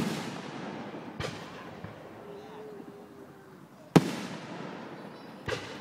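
Fireworks exploding: loud sharp bangs at the start and about four seconds in, smaller ones about a second in and near the end, each trailing off in a rumbling echo.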